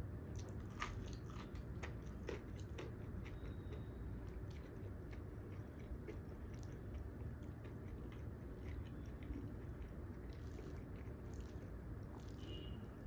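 A person chewing and biting food, with crunchy clicks that come thickest in the first three seconds and then scatter.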